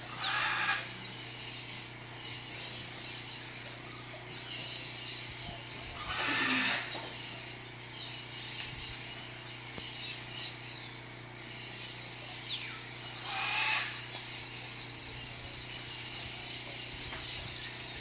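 A bird calling three times, about six to seven seconds apart. Each call is a short note that slides steeply down in pitch. A steady background hum runs underneath.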